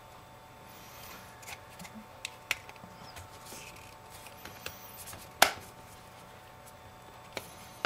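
iPhone 5 screen assembly being pressed down into its aluminium housing, its edge clips snapping into place with sharp clicks. There are a few lighter clicks in the first three seconds, the loudest snap about five and a half seconds in, and another click near the end, with soft handling sounds between them.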